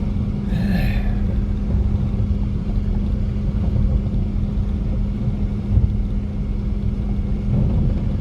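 Vehicle engine running steadily under way, with a constant hum and heavy low rumble of driving over rough ground. A brief higher-pitched sound comes about half a second in.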